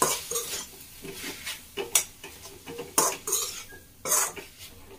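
A metal utensil scraping and clinking against a metal kadhai as leafy greens and chopped tomatoes are stirred, with a few louder scrapes about a second apart over a faint sizzle.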